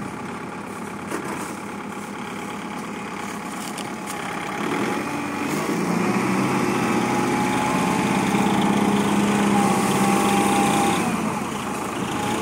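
Tractor engine running steadily, growing louder about five seconds in and easing back near the end.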